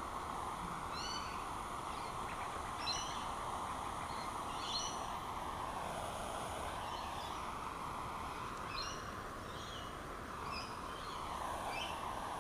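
A bird repeats a short, high chirping call roughly every two seconds over a steady hiss.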